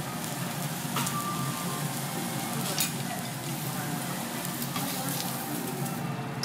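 Prawns sizzling steadily on a hot teppanyaki iron griddle, with a few sharp clicks over the sizzle.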